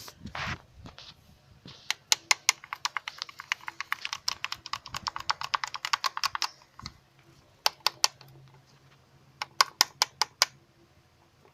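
Rapid sharp clicking from the timing chain of a Hyundai D4CB diesel engine, the rattle caused by a worn outer timing chain. The clicks come in a fast run of about nine a second for some four seconds, then in two short bursts.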